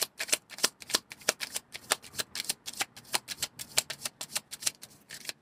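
A deck of tarot cards being shuffled by hand: a quick, uneven run of card clicks, about seven or eight a second.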